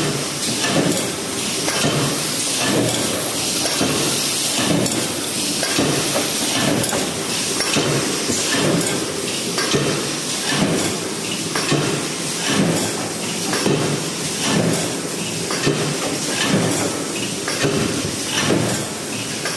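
Paper box erecting machine running, clacking in an even rhythm of about one stroke a second over a steady mechanical din.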